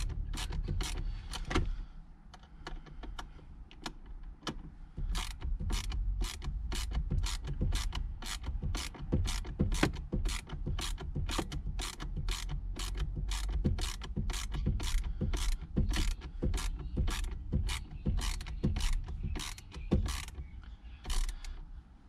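Hand ratchet clicking steadily, about three clicks a second, as a steering-wheel fastener is tightened.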